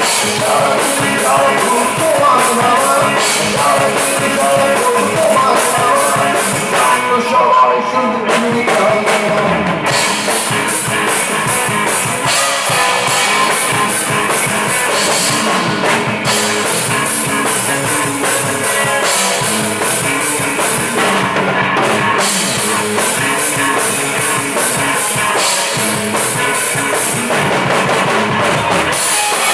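Rock band playing live: electric guitars over a drum kit with busy cymbal strokes throughout.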